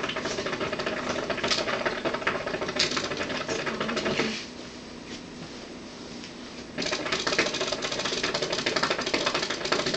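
Water bubbling in the base of a 32-inch Nammor Cleopatra hookah as the smoker draws through the hose: a rapid bubbling rattle in two long pulls, the first lasting about four seconds and the second starting about seven seconds in, with a short pause between.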